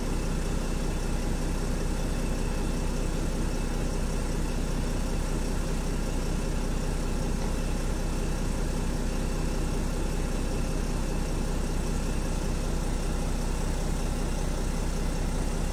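Mercedes OM642 3.0-litre V6 turbodiesel in a Jeep Grand Cherokee idling steadily, heard from inside the cabin. The engine is fully warm after a forced diesel particulate filter regeneration.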